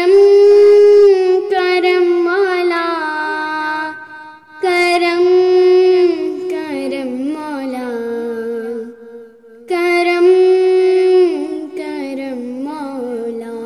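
A young girl singing an Urdu hamd unaccompanied, in three long phrases that each open on a held high note and fall in pitch toward the end, with short breaths between them.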